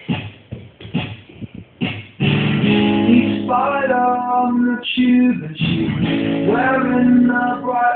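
Music recorded on a phone: a few sparse plucked notes, then about two seconds in a fuller guitar-led piece begins, with sustained chords and sliding melody notes.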